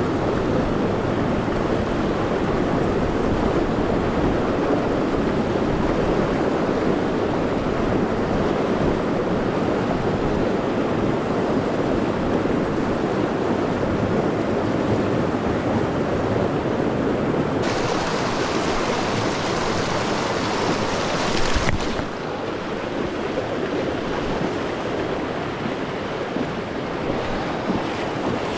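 A small mountain stream running fast with snowmelt, a steady rush of water. About two-thirds through, a brighter hiss comes in for a few seconds, and after it the rush is a little quieter.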